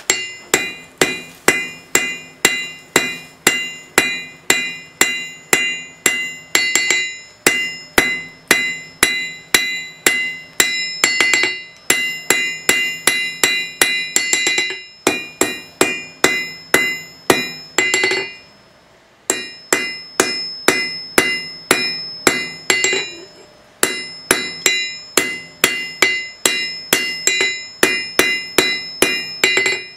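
Hammer blows on red-hot steel on an anvil, forge-welding a borax-fluxed, folded-over flat bar at welding heat. A steady run of about two to three blows a second, each with a metallic ring, pausing briefly twice, about two-thirds of the way through and again a few seconds later.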